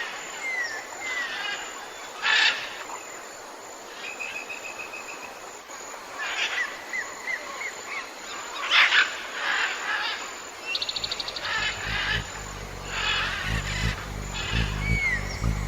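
Birds calling in the wild: scattered chirps, short sliding whistles, a quick run of even notes and a fast trill, over a steady outdoor hiss. A low humming drone comes in about eleven seconds in.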